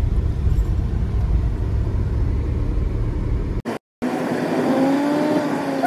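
Car cabin noise on a rough mountain road: a steady low rumble of engine and tyres. Nearly four seconds in, it cuts out to a brief silence, then resumes with less rumble and a whine that slowly rises and falls.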